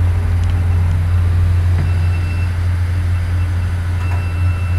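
Steady low drone of a cargo ship's engine-room machinery, with a faint high whine that comes and goes.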